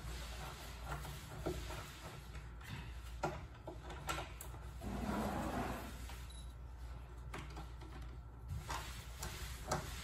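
Scattered small metallic clicks and scrapes of a Phillips screwdriver working the latch-plate screws out of a Kwikset keyed-entry door lock, with a short rustle about five seconds in.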